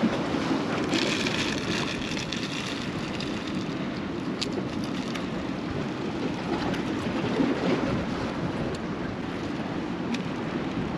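Steady rushing noise of wind and surf, with a few faint ticks.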